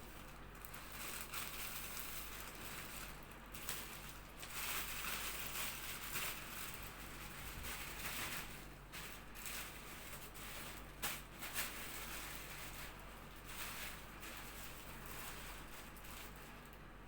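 Rustling, crinkling and handling noises of nursing equipment being gathered and packed away, with two sharper knocks about eleven seconds in.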